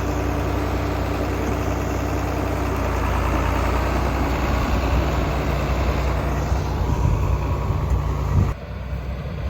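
Farm tractor engine running steadily at idle, a deep even hum that drops abruptly in level about eight and a half seconds in.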